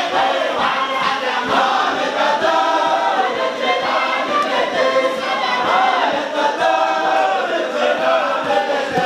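A large group of men chanting together in unison, a Sufi dhikr chant of a daira, the melody rising and falling without pause.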